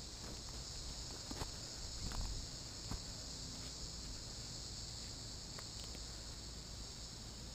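Steady high-pitched insect drone from the surrounding woods, with a few soft footsteps and twig cracks on leaf litter in the first three seconds.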